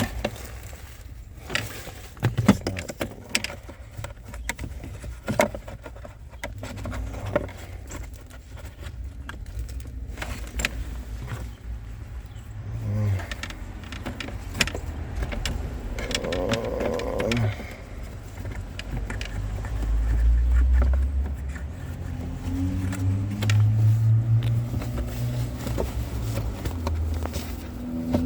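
Scattered plastic clicks and knocks of hands refitting a Jeep Wrangler JK's cabin air filter housing behind the glove box, with a low rumble growing in the latter part.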